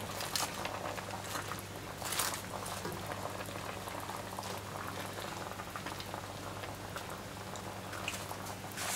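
Sukiyaki broth simmering in a wide steel pan, a steady crackly bubbling, with a few light handling sounds as shiitake mushrooms are tucked in at the edge of the pan.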